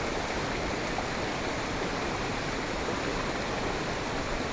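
Steady rushing of a swollen, muddy river in flood.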